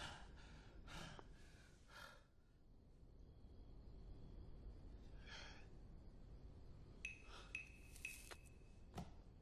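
Near silence, with a few faint breaths and sighs, then a faint high tone and a few small clicks near the end.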